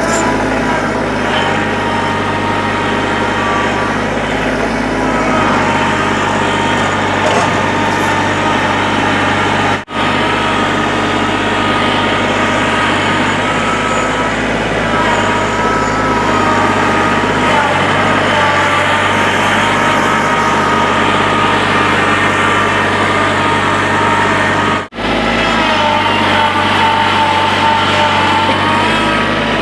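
Excavator's diesel engine running steadily at working speed, with a whine that shifts a little in pitch as the machine works. The sound cuts out abruptly twice, for a split second each time.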